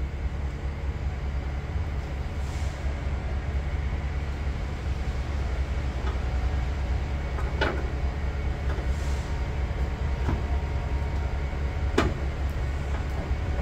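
Steady low rumble throughout, with a few sharp plastic clicks, the clearest about seven and a half and twelve seconds in, as a licence-plate bracket is handled and fitted under a pickup's rear bumper.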